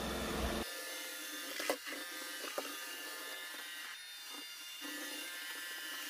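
Roomba i7 robot vacuum running, a steady motor whine over a hiss of suction, with two light knocks about two seconds in.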